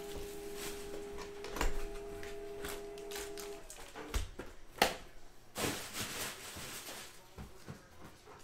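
Hands opening a box of trading-card packs: scattered clicks and rustles of cardboard and plastic wrapper, with a sharper snap about five seconds in.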